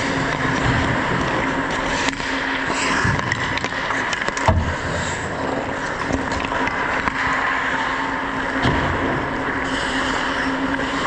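Ice hockey play: skate blades scraping and carving on the ice, with scattered stick-and-puck clacks and one sharp crack about four and a half seconds in, over a steady hum.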